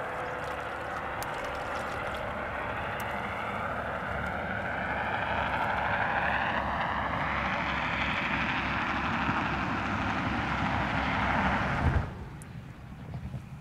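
Drone of a small propeller plane passing over, growing steadily louder, with slow sweeping shifts in tone. It cuts off abruptly about twelve seconds in.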